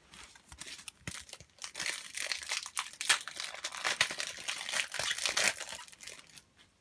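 A Panini FIFA 365 trading-card booster pack being torn open and its wrapper crinkled: a dense run of crackling and rustling that is loudest in the middle and dies away near the end.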